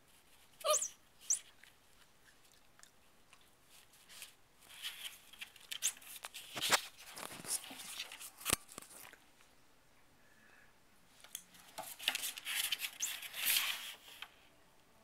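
Cairn Terrier puppy scrabbling about inside a cardboard tube, its claws and body scraping and rustling on the cardboard in irregular bursts, busiest around the middle and again near the end. A couple of short high squeaks come about a second in.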